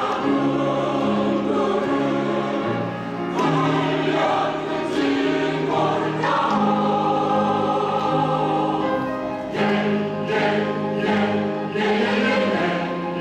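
Women's choir singing in sustained, held phrases with piano accompaniment.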